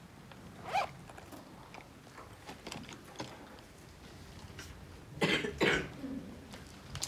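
A person coughing twice about five seconds in, after a shorter throat sound about a second in, over quiet classroom room tone with faint ticks and scratches of pens writing on paper.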